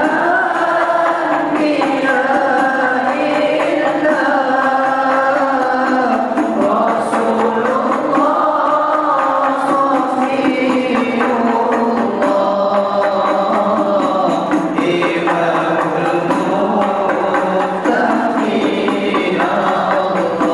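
An Arabic devotional qasidah being sung in a chanting style, the melody moving through held, rising and falling sung lines.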